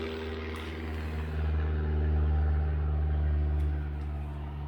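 Low, steady rumble of a running engine. It grows louder for about two seconds in the middle, then eases back.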